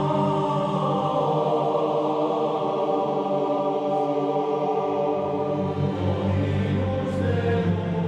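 Background music of sustained, choir-like voices holding long chords, shifting to a new chord about two-thirds of the way through.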